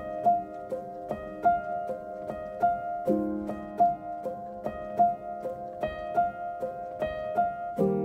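Background music: a light tune of short plucked notes in an even rhythm.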